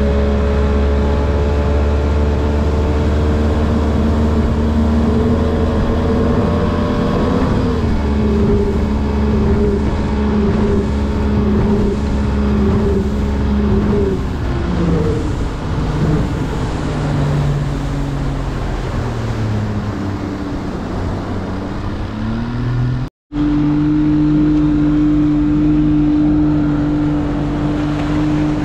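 Bass boat's outboard motor running at speed with water and wind noise; its pitch lifts briefly early on, sinks gradually through the middle, and after a sudden break about two-thirds through holds one steady pitch.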